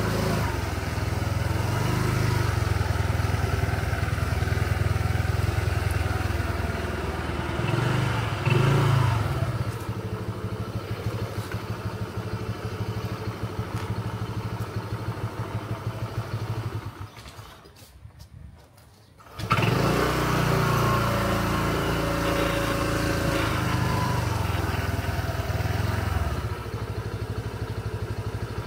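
Small engine running steadily and revving up and down a few times. About two-thirds of the way through it drops away for roughly two seconds, then comes back.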